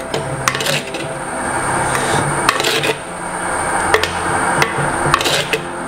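A spoon stirring spinach, tuber pieces and tomato in a black clay pot, knocking and clinking against the pot several times, over a steady hiss.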